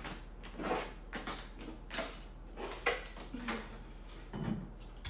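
Footsteps in clogging shoes, their metal taps clicking irregularly on a wooden floor as the dancer walks, with a light knock near the end as a water bottle is set down on a wooden dresser.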